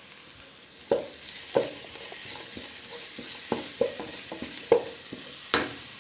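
Sliced onions with crushed ginger and garlic sizzling in coconut oil in a pan, stirred with a wooden spatula that knocks and scrapes against the pan about six times, the sharpest knock near the end.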